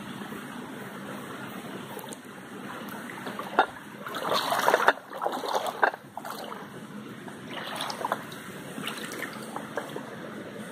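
Shallow stream trickling, with bursts of splashing from a dog wading through the water: the loudest run is about four to six seconds in, with lighter splashes near the end.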